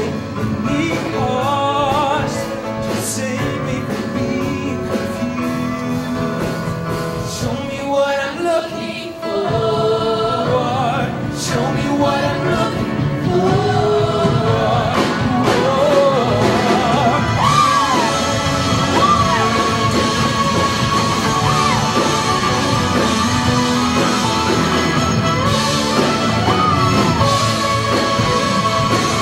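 High school show choir singing live with band accompaniment, the voices gliding between notes over a full, steady backing.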